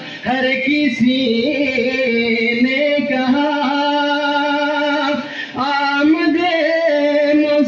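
A single male voice chanting a manqabat, an Urdu devotional poem, in long held melodic notes, with short breaks for breath just after the start and about five seconds in.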